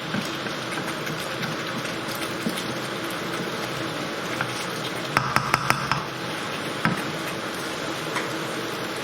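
Chicken curry in base gravy bubbling and sizzling in a pan as it is brought up to the boil, a steady hiss. A little past halfway comes a quick run of about five sharp clicks.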